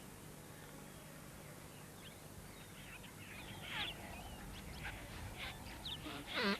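Spotted hyenas calling. Faint at first, then a run of short gliding cries that grows louder, the loudest a falling cry near the end.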